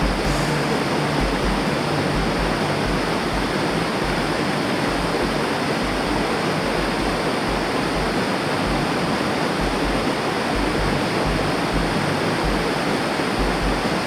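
Mountain stream rushing over boulders in small cascades: a steady, even rush of white water.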